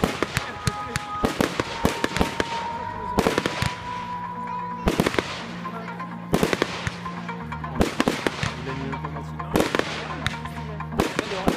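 Fireworks display: aerial shells launching from ground mortars and bursting overhead, a dense run of sharp bangs and crackles several times a second.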